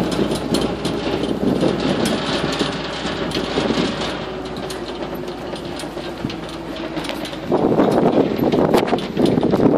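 An open swamp buggy driving over a dirt track: its engine runs and the open vehicle rattles. The noise gets clearly louder about three-quarters of the way through.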